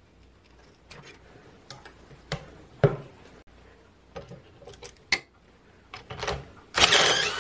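Scattered clicks and clinks of wires, connectors and metal hand tools being handled, then near the end a cordless drill runs briefly on the dryer motor's shaft end.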